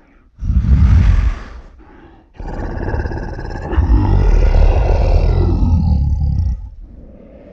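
Zilla monster roar sound effects: a short deep roar about half a second in, then a long roar lasting about four seconds.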